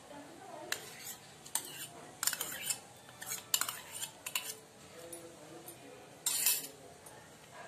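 Metal spoon clinking against bowls in a string of short, uneven taps as grated boiled potato is tipped out of a steel bowl into beaten egg mixture, with a longer scrape about six seconds in.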